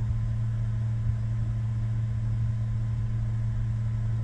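MakerPi K5 3D printer humming steadily while idle and heating its bed, a constant low electrical hum with a fan-like hiss above it.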